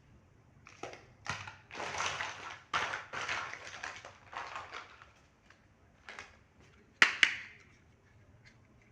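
Packaging and small toy kitchen pieces being handled: a run of rustling and crinkling for a few seconds, then two sharp clicks about seven seconds in.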